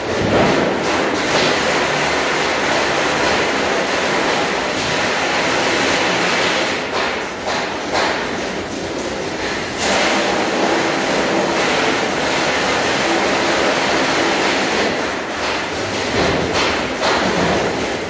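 CNC sheet-steel cutting machine running, a loud steady hiss with short swells and dips.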